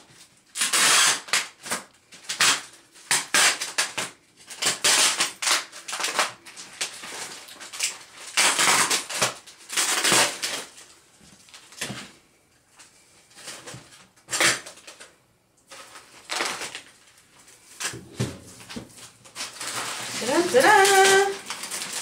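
Inflatable air-column plastic packaging rustling and crinkling as it is handled and pulled off a plastic-wrapped box, in a string of irregular crackles. Near the end there is a short squeak that rises a little in pitch.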